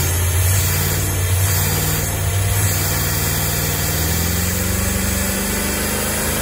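1998 Jeep Grand Cherokee 5.9 Limited's 5.9-litre V8 idling on its own but running rough, a sign that it is still misfiring. The engine speed creeps up slightly in the second half.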